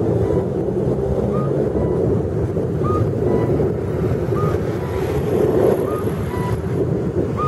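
Audible crossing device of a Japanese pedestrian signal sounding its walk tone while the signal shows green: an electronic two-note cuckoo call, a short higher note then a slightly lower one, repeating about every one and a half seconds. It sounds over a loud steady rushing noise, much of it wind on the microphone.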